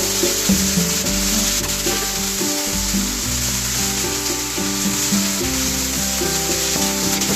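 Food sizzling in a frying pan, a steady hiss, with background music of held bass and melody notes.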